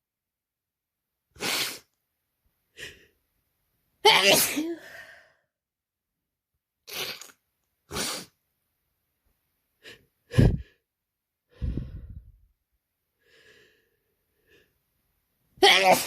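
A person with a head cold sneezing repeatedly. The loudest sneezes come about four seconds in and at the very end, with shorter, sharper bursts between them.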